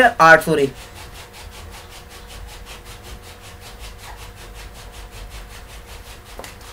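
Faint background noise with a fast, even pulsing hiss, about six pulses a second, over a low steady hum.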